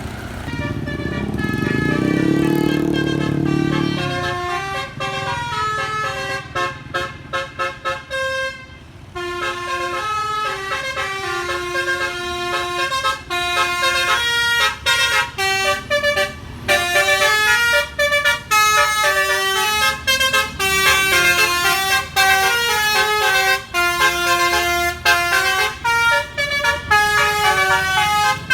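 Bus telolet basuri musical horn playing quick melodies as a fast run of short stepped notes, choppy and stuttering for a few seconds before running on. A deeper tone rises over the first few seconds.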